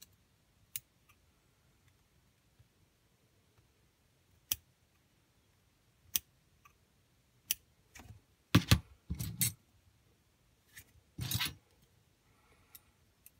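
Small clippers snipping stray cotton fibres off the wick of a rebuildable vape atomizer: a series of separate sharp clicks, then a few louder, longer handling noises about two-thirds of the way through.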